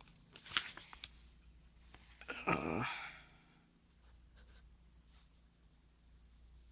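Handling noise of a paper instruction manual and the camera held over it: a few light rustles and clicks, then a louder, brief rustle about two and a half seconds in.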